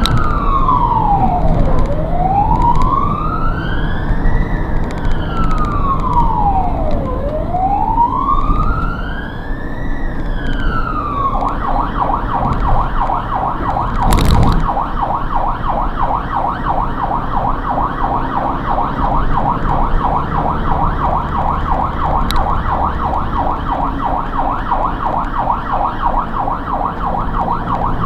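Ambulance siren sounding on a response. It starts as a slow wail, rising and falling about every two and a half seconds, then about eleven seconds in switches to a rapid yelp that warbles several times a second. One brief sharp knock about halfway through, over steady engine and road noise.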